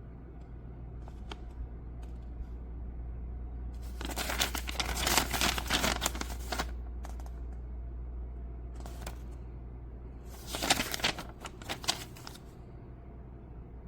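Crinkling and rustling handling noise in two bursts, one about four seconds in and one about ten seconds in, with scattered clicks between them. A steady low hum runs underneath.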